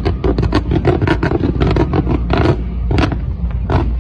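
Aerial fireworks going off in a rapid string of sharp bangs and cracks, about five a second, then two more spaced out near the end, over a steady low rumble.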